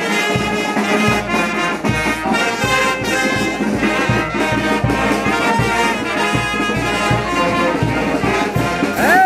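Brass band playing lively dance music: trumpets and trombones carrying the tune over a steady drum beat of about two strokes a second.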